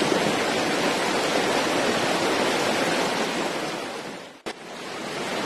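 Steady rush of river water flowing. About four and a half seconds in it dips briefly to near silence with a click, then comes back.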